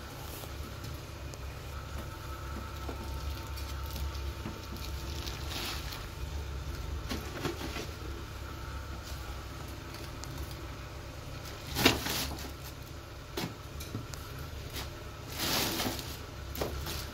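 A litter scoop scraping and digging through granular clumping cat litter, in scattered short scratchy rasps with one sharper knock about twelve seconds in, over a steady low hum. Near the end comes a longer rustling stretch as a plastic bag is handled.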